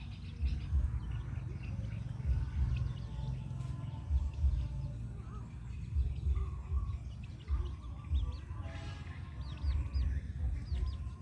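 Small birds chirping: short, high, falling peeps scattered throughout, over a low thumping that recurs about once a second and is the loudest sound.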